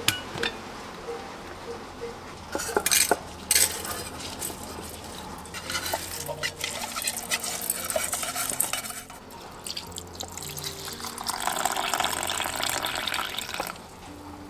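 A sharp click as the lid latch of a small Jenniferoom rice cooker is released, then clinks and a rustling pour as uncooked rice goes into the cooker's inner pot. Near the end, water runs into the pot over the rice for a few seconds.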